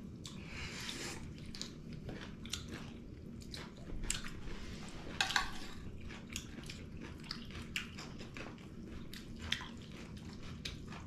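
People chewing and biting food close to the microphone: many short, irregular crunching clicks.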